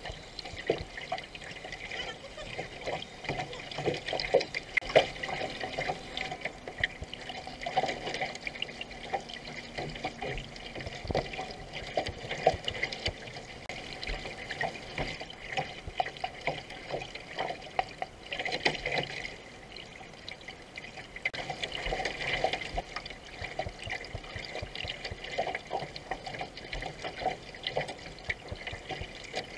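Water splashing and trickling around a racing canoe as it is paddled: irregular splashes of paddle blades entering and leaving the water over a steady wash along the hull.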